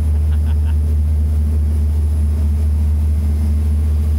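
Boat engine running steadily at cruising speed under way, heard from inside the wheelhouse as a loud, even low drone.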